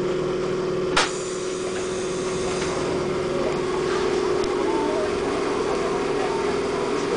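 Enoshima Electric Railway (Enoden) train running along the coast, heard from inside the car: a steady running noise with a steady hum, and one sharp click about a second in.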